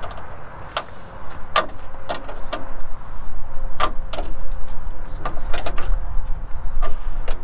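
Irregular sharp knocks and clicks, about ten over the seconds, as a fiberglass tail cone is worked loose from a kit car's body.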